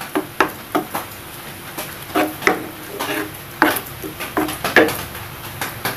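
Wooden spatula stirring thick pineapple curry with ground coconut paste in a non-stick frying pan: irregular knocks and scrapes of wood against the pan, about two a second.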